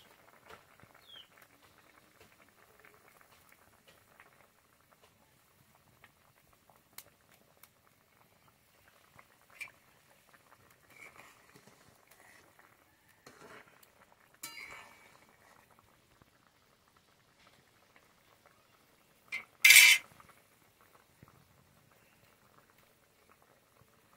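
Fish curry boiling hard in a metal kadai, a steady faint bubbling and fizzing. A few short knocks and scrapes of a steel ladle against the pan sound over it, the loudest a sharp clank about four seconds before the end.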